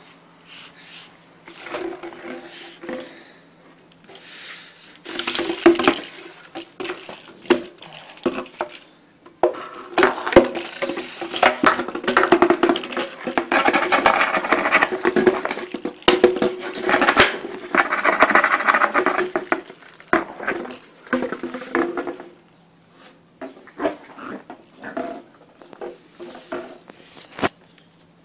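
An empty plastic bottle being bitten, pawed and knocked about by a small dog: crinkling plastic and irregular clattering knocks on a wooden floor, busiest in a long stretch in the middle and sparser near the end.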